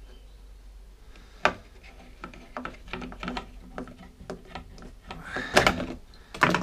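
Clicks, taps and knocks of hands handling plastic and metal parts at a lawnmower engine's carburettor. There is a sharp knock about one and a half seconds in, a run of smaller clicks after it, and louder clattering near the end.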